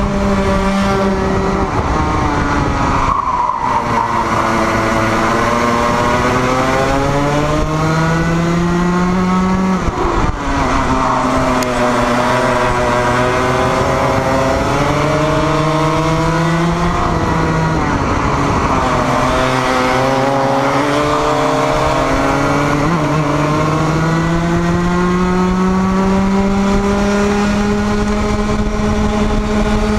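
Racing kart engine at full load on track. The revs climb steadily along each straight and drop sharply into a corner three times, about 3, 10 and 18 seconds in, then climb again.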